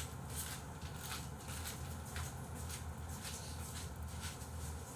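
Quiet room tone: a low steady hum with faint, scattered soft clicks.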